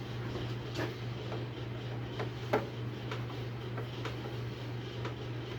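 Scattered light clicks of a screwdriver and screws, irregularly spaced, as the disc guard is fastened back onto a bench belt and disc sander, over a steady low hum.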